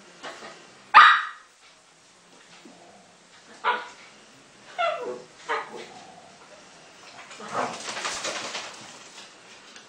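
Dogs barking in play: one sharp bark about a second in, a few more barks between about four and six seconds in, some sliding down in pitch, then a noisy scuffle of about two seconds near the end as the dogs tussle.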